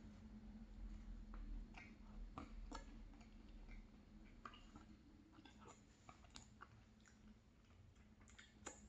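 Faint eating sounds: soft chewing with scattered small mouth clicks, a mouthful of ice cream and crumbled almond-raspberry tart, over a faint steady low hum.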